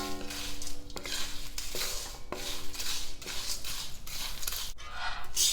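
A spoon stirring a dry roasted cornflake, peanut and poha mix in a pan, making a steady rustling scrape. The spoon knocks against the pan a few times, and the pan rings briefly after each knock.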